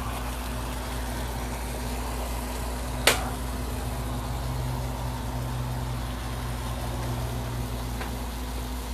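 Steady low hum of a motor running, with one sharp click about three seconds in.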